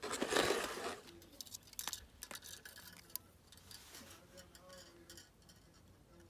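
A short rustle, then scattered light clicks and ticks as a wooden beehive frame and its foundation wire are handled and squeezed.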